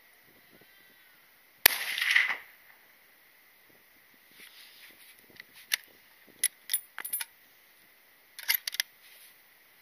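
A single full-bore rifle shot about two seconds in, with a trailing echo for about a second. Then the rifle's bolt being worked by hand: a run of short metallic clicks and clacks from about five and a half to nine seconds in.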